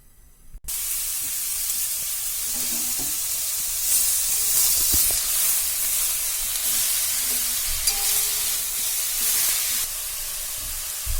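Hot oil in a kadhai sizzling loudly as the vegetable stuffing for momos goes in, starting suddenly about half a second in and running steadily while it is stirred, with a few faint knocks of the spoon.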